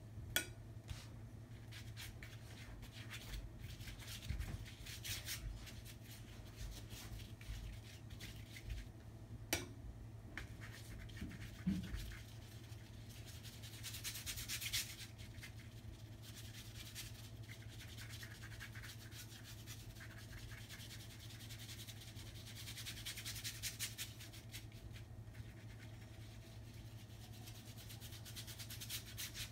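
Hands rummaging through a plastic box of acrylic paint tubes and brushes: on-and-off rustling and rubbing, with a few sharp clicks of tubes knocking together, over a faint steady low hum.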